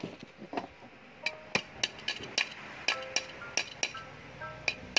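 Steel wire clicking and clinking against a metal tool as a fishing hook is bent by hand: irregular sharp metallic clicks, about three a second. Soft background music with short melodic notes plays underneath.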